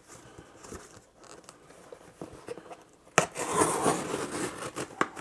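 Cardboard box being handled and opened: faint rubbing and rustling, then about three seconds in a sharp crack followed by nearly two seconds of louder scraping and rustling of cardboard.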